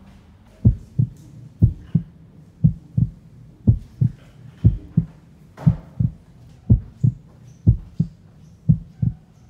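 Heartbeat sound effect: a slow, steady lub-dub, nine double beats about one a second, laid over the footage to build suspense.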